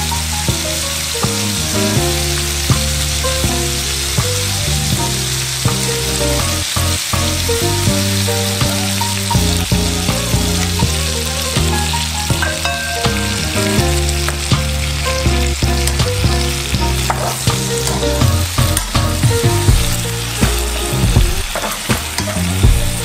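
Sliced beef, red chillies and garlic sizzling in hot oil in a frying pan, a steady hiss. Near the end the pan is stirred, adding sharp scrapes and clatter.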